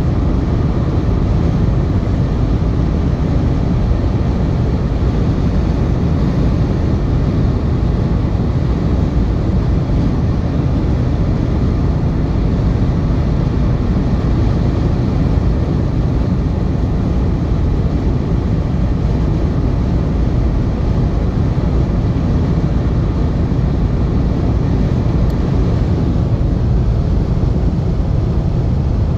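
Steady low rumble of tyre and wind noise inside a car's cabin while it drives at motorway speed.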